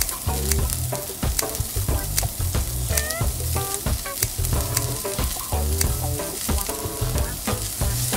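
Raw beef short rib sizzling on a grill, with frequent crackles and pops. A background music track with a steady bass line plays along.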